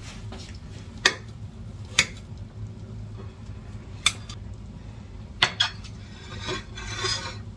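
A metal utensil knocking and clinking against a cooking pot, five sharp knocks with the last two close together, then a short scrape about two-thirds of the way through, over a low steady hum.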